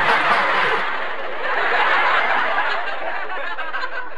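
A small audience applauding, mixed with some laughter.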